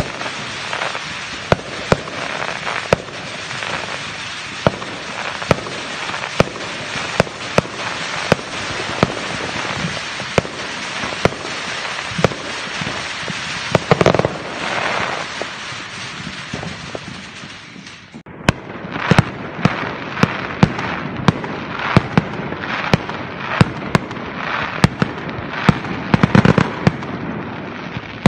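Aerial fireworks going off: a rapid, irregular string of sharp bangs over continuous crackling, with a brief lull about two-thirds of the way through before the bangs start again.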